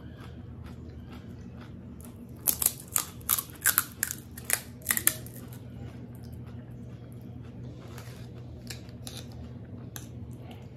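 Crisp, hollow pani puri shell cracking as a finger breaks a hole in its top: a quick run of about eight sharp crackles over roughly two and a half seconds, heard over a steady low hum.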